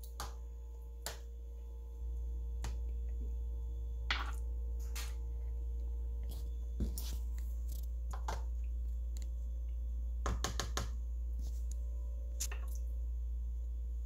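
Metal kitchen tongs clicking and tapping against a plastic bowl as raw fish chunks are dipped in a wet batter mix: scattered single clicks a second or more apart, with a quick run of several about ten seconds in, over a steady low hum.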